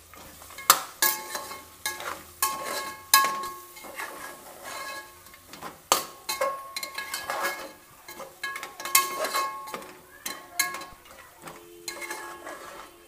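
A metal spoon stirring and scraping mutton trotters in tomato masala inside an aluminium pressure cooker, with repeated irregular clinks against the pot that ring out briefly.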